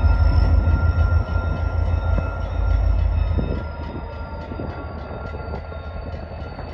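Diesel locomotive running light without cars, its low engine rumble loud at first, then fading about halfway through as it moves off.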